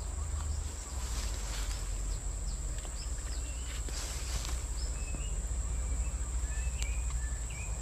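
Outdoor ambience: a steady high-pitched insect drone, with a bird repeating short chirping notes from about three seconds in, over a steady low rumble.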